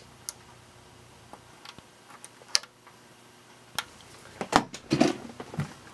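Plastic power switch of a Packard Bell Legend 818CDT desktop tower clicked, with a few more sharp clicks after it. No fan or drive starts up because the machine is not plugged in. Near the end come louder knocks and rustling from handling.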